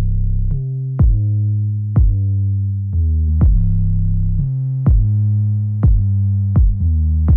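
Electronic background music: a deep synth bass line with a drum-machine kick hitting about once a second.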